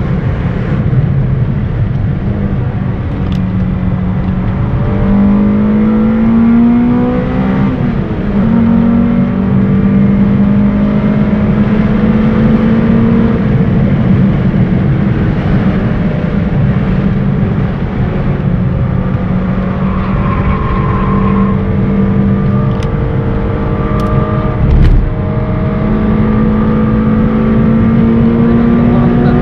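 Honda Civic VTi's 1.6-litre B16 VTEC four-cylinder heard from inside the cabin on track, revving high through the gears: its pitch climbs under acceleration and drops at each upshift, over steady road and wind noise. A single thump about 25 seconds in.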